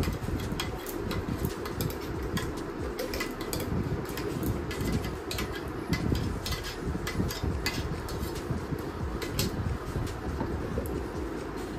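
Frequent short clicks and taps of a stainless-steel mixer-grinder jar knocking against a small pan as thick cucumber paste is poured and worked out of it, over a steady low background noise.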